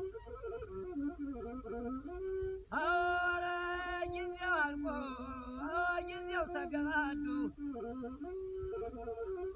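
Ethiopian azmari music: a masinko, the single-string bowed fiddle, plays a slow melody of held, sliding, wavering notes. For a few seconds in the middle the line turns louder and brighter.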